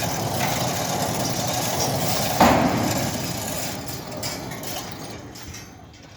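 Steady machinery noise with one loud bang about two and a half seconds in, after which the noise slowly dies away.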